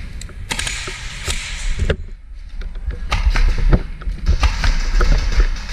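Irregular sharp clicks and knocks, a few a second, over a heavy low rumble of movement, during an airsoft game.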